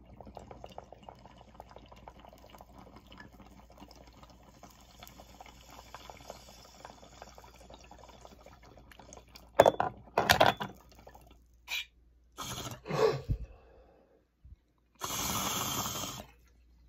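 Water bubbling in a glass beaker bong as smoke is drawn through it in one long pull of about nine seconds. Then come several short loud sounds and, near the end, a long breath out as the smoke is exhaled.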